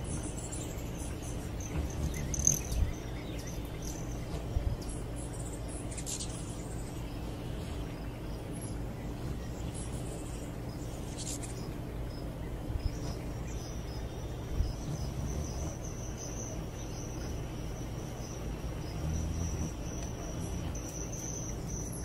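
Crickets trilling steadily in a pulsing high chorus that grows stronger in the second half, with a few short bird chirps. A low steady hum runs underneath.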